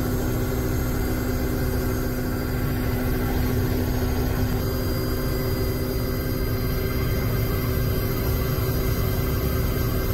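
Helicopter engine and rotor noise heard on board in flight: a steady low rumble with a constant hum.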